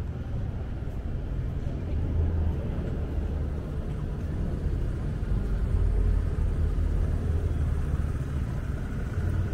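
City street traffic: cars running along the road beside the sidewalk, a steady low rumble that swells a little in the middle.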